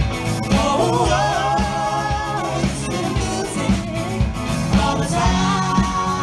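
Live band playing through stage loudspeakers, with singing over a steady beat.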